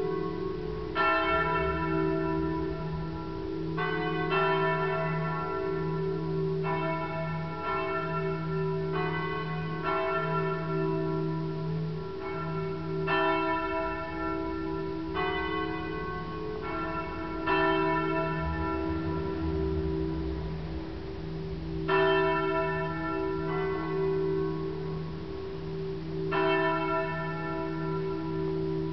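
Pistoia Cathedral's church bells ringing together: a dozen or so strokes of the higher bells fall at uneven intervals over the steady, pulsing hum of the lower bells.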